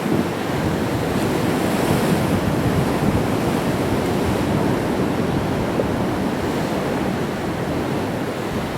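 Sea waves breaking against rocks, a steady wash of surf.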